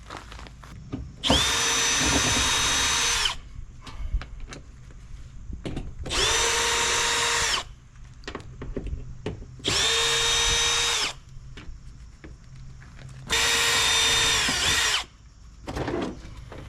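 Power drill driving screws out of a sheet-metal appliance panel: four short runs of the motor whine, each spinning up and winding down, with light clatter of parts handled between them.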